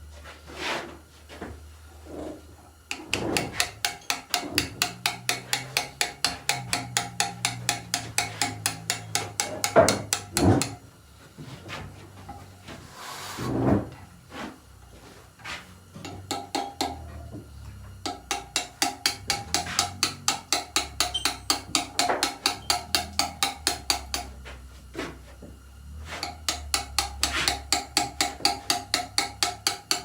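Hand stone carving: a mallet striking a chisel into stone in quick, even runs of about five blows a second, each blow with a slight ring, broken by short pauses and a few heavier knocks.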